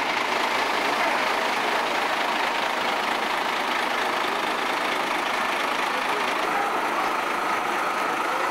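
A truck carrying a parade float rolls slowly past, its engine running under a steady street noise with faint voices in it.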